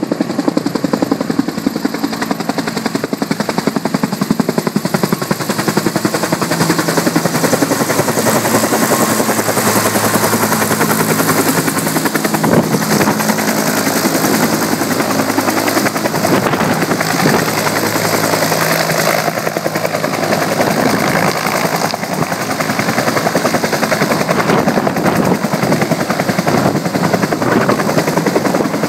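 Firefighting helicopter's rotor beating steadily and loudly, with its engine tone underneath.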